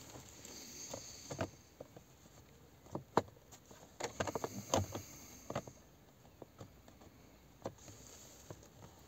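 Plastic steering-column trim cover of a VW Golf Mk6 being handled and pressed into place: scattered light clicks and knocks of plastic, bunched in the middle.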